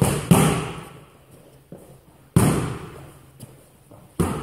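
Strikes landing on kickboxing pads: three sharp smacks about two seconds apart, each trailing off in the echo of a large hall.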